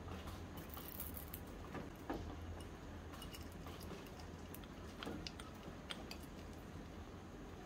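A small metal spoon tapping and scraping against a tiny steel pan and a small plastic container, giving scattered light clicks and a few sharper taps over a low steady hum.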